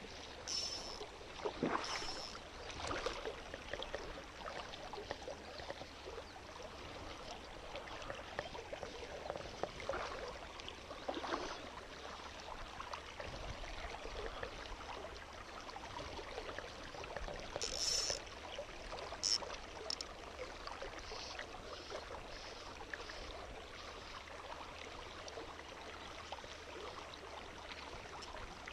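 Small mountain stream running steadily over riffles, with a few brief sharp clicks or handling sounds about two, three, eighteen and nineteen seconds in.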